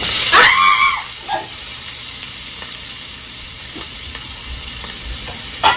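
Pieces of steak put into hot oil in a frying pan, setting off a loud sizzle that starts suddenly, is loudest for the first second, then settles into a steady frying hiss. A few short spits or clicks near the end.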